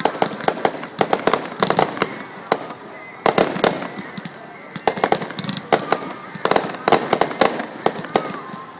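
Fireworks display: rapid volleys of sharp bangs in clusters, with a few brief lulls between them.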